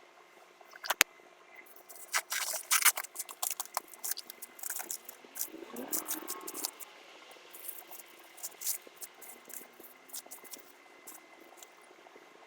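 Packaging being handled while unboxing: irregular crinkling, crackling and clicking. A sharp click comes about a second in, and a short squeaky rub comes about halfway through.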